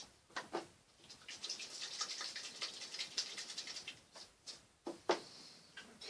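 Stiff oil-painting brush scrubbing and dabbing paint: a quick run of dry, scratchy strokes for a couple of seconds, with a few single taps before and after.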